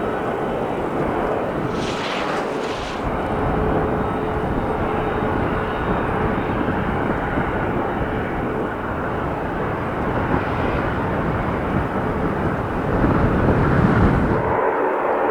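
Aircraft engines running steadily, a continuous noisy drone with a faint held tone, over wind rumbling on the microphone. The sound swells near the end, then the low rumble drops away suddenly.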